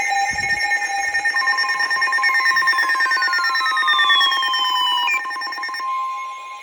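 Weather radio receivers going off for an incoming alert: fast pulsing alarm beeps over several steady tones, with two falling siren-like sweeps in the middle. The broadcast's steady warning alarm tone joins about a second and a half in, and most of the receiver alarms stop about five to six seconds in, leaving that tone sounding.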